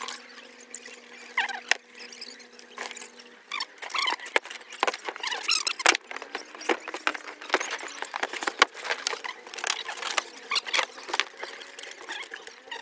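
A string of short clicks and high squeaks as audio cables and connectors are handled and plugged into an amplifier rack and snake box. A steady low hum sounds under them and stops after about three and a half seconds.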